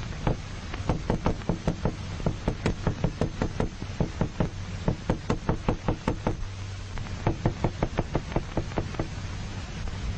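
Hammer knocking repeatedly on a hard surface, several quick strikes a second, with a short break about six seconds in.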